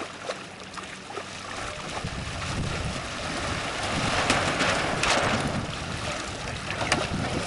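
Wind buffeting the microphone over the wash of water, swelling about a second and a half in and loudest near the middle, with a few sharp snaps.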